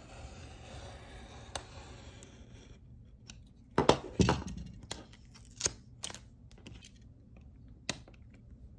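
Craft knife drawn along a ruler, slicing through glossy cardstock photo prints in a faint hissing scrape, followed by a few sharp clacks about halfway through and some single clicks as the ruler and paper are shifted on the cutting mat.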